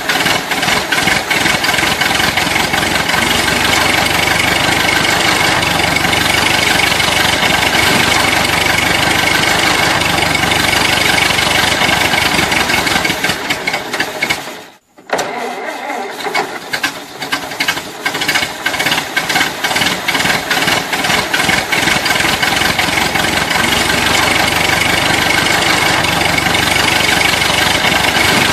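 A motor running steadily with a fast rattle. It cuts out for a moment about halfway through, then starts up again and keeps running.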